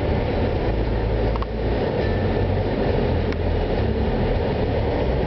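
Steady car cabin noise while driving: a low engine and road rumble with an even hiss over it.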